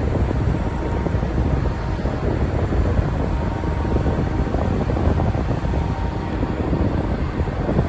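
Steady low mechanical rumble of a workboat's engine running.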